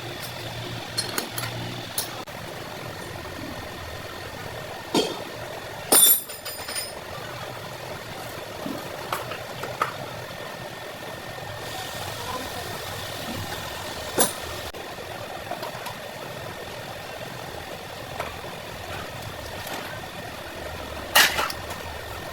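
Steel gearbox parts and tools clinking and knocking a few times, sharpest about six seconds in and again near the end, over a steady low hum.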